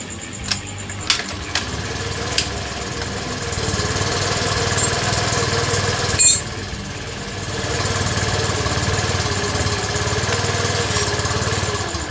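Suzuki Skydrive scooter's single-cylinder four-stroke engine running with a freshly fitted center spring and cleaned CVT. It picks up speed about four seconds in and again near eight seconds. A sharp click comes a little after six seconds.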